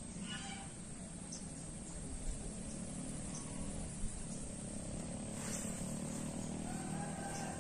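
Outdoor ambience: a steady low hum like distant traffic, under a constant thin high-pitched drone like insects, with a short pitched call about half a second in.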